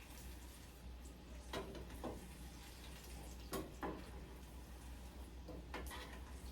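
Cassava balls deep-frying in hot oil: a faint steady sizzle with about five sharp pops.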